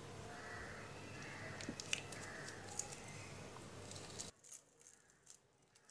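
A few faint clicks of a metal garlic press being opened and squeezed, pressing garlic cloves, over low background noise that drops away suddenly about four seconds in.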